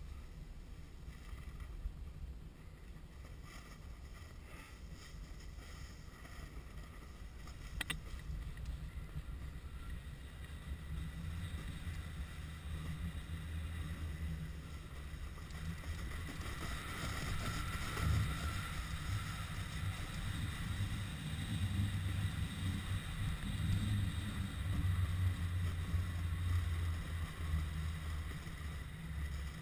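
Wind buffeting the microphone of a skier descending a powder slope, with the hiss of skis through snow getting louder in the second half. A single click about eight seconds in.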